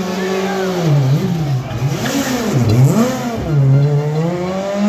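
Rally car engine revving hard, its pitch rising and falling several times as the throttle is worked on and off.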